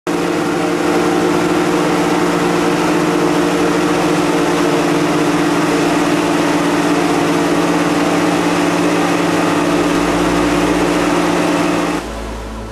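Boat motor running steadily under way, a constant engine hum that cuts off suddenly near the end.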